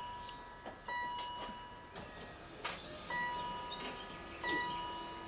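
A 2002 BMW X5's dashboard warning chime ringing over and over, one bell-like tone about every second and a half, while the ignition key is cycled on and off to prime the fuel pump. A sharp click a little under three seconds in.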